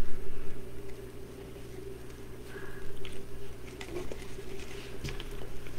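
Rustling and crinkling of deco mesh and ribbon being handled and worked onto a wire wreath frame, with scattered small clicks and taps, over a steady low background hum.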